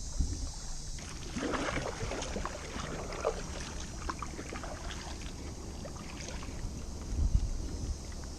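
A kayak on the water: small splashes, drips and light knocks around the hull and paddle, starting about a second in, over a low rumble of wind on the microphone with a couple of stronger low thumps.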